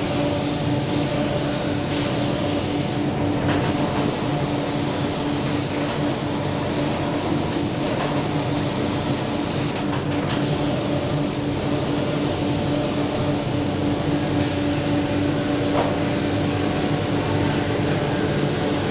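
Automatic spray machine's spray gun hissing steadily as it sprays PU paint onto an MDF board, cutting out briefly twice, over a steady machine hum.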